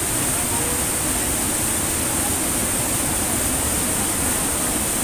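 Small river waterfall rushing steadily over a rock ledge into a pool, an even wash of white-water noise.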